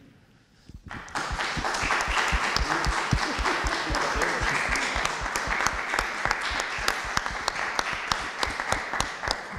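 Audience applauding: the clapping starts about a second in, runs on steadily and dies away near the end.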